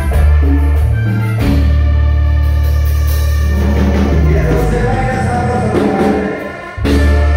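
Live dance band playing loudly through a PA, with heavy sustained bass notes under keyboard chords and a singing voice. The music dips briefly near the end and then comes back in at full level.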